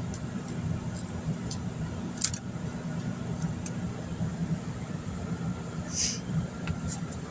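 Steady low mechanical hum, with a few brief rustles or hisses, the most prominent about two and six seconds in.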